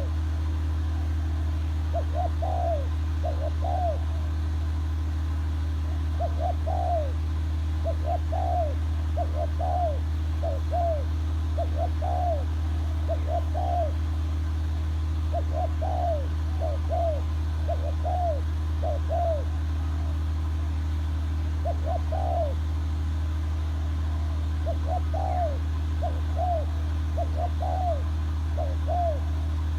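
A bird calling repeatedly: short rising-and-falling notes in groups of two to four, a second or two between groups, over a steady low hum.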